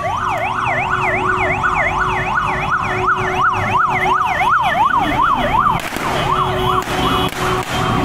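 Electronic emergency-vehicle siren on a fast yelp, sweeping up and down about three times a second; it breaks off about six seconds in, gives a short final burst and stops. Motorcycle and vehicle engines run underneath.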